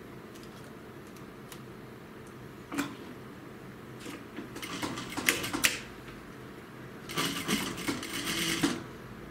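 Juki industrial lockstitch sewing machine stitching through a synthetic-leather welt in short runs: a brief knock about three seconds in, then two quick clattering bursts of stitching, the second one longest, near the end. A steady low hum runs underneath.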